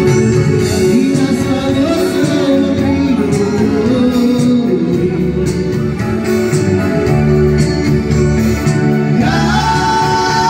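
Loud dance music with singing. A held, higher melodic line comes in about nine seconds in.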